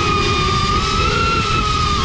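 FPV quadcopter's brushless motors and propellers whining steadily, the pitch edging up slightly about a second in, over a low rush of wind on the on-board GoPro's microphone.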